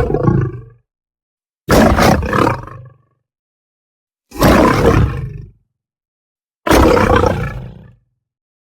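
Designed creature roars for a were-hyena: four separate roars, the first already underway, each starting suddenly and fading out over about a second, with silence between.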